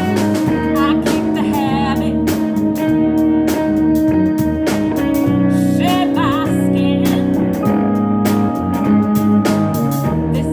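A band playing: drums keep a steady beat under guitar and held chords, and a wavering lead line bends in briefly about a second in and again around six seconds.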